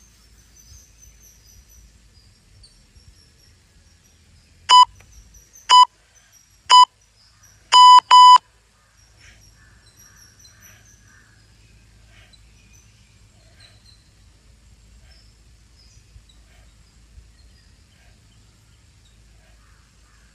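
Electronic interval-timer countdown: three short beeps about a second apart, then one longer beep, signalling the start of a work interval. Faint bird chirps in the background.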